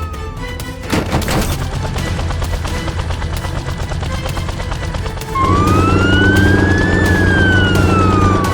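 Emergency-vehicle siren wailing in slow rises and falls over a steady vehicle engine. A short noisy whoosh comes about a second in, and the siren and engine return louder a little after five seconds.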